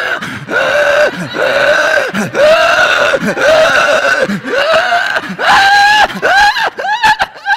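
A ventriloquist voicing his puppet as it screams in a quick series of short cries, about two a second, that get higher in pitch near the end, the puppet's panic at being shut inside a plastic bag.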